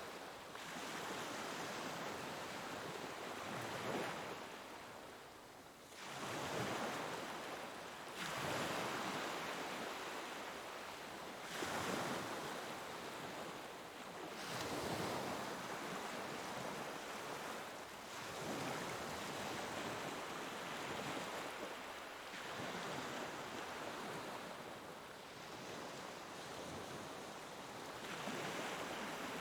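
Ocean waves breaking and washing up a shore, one surge every few seconds, each swell rising and falling away, with a steady wash of surf between them.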